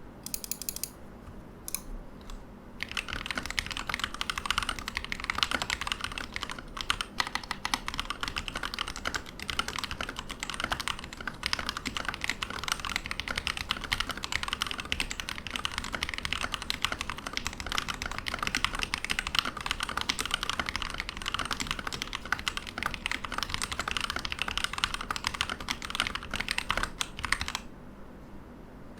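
Typing on a Keydous NJ80 mechanical keyboard with Gateron Pro Yellow linear switches on a steel plate. A few single key presses come first, then fast continuous typing, which stops briefly near the end.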